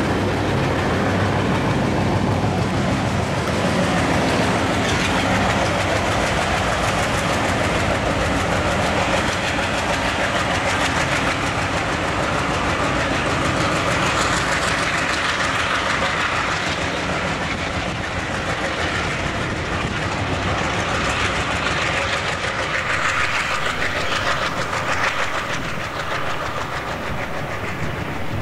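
Diesel freight locomotive passing close under power. Its engine drone is strongest in the first few seconds, and the wheels clatter over the rail joints.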